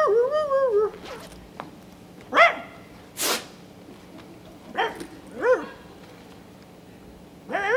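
A person imitating a dog: short whimpering yelps that rise and fall in pitch, several times with pauses between. About three seconds in there is a short zip-like rasp as a handbag is opened.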